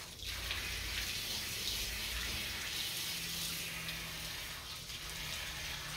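Water from a garden hose running steadily and splashing onto a small dog being rinsed and the wet concrete floor around it: a continuous hiss.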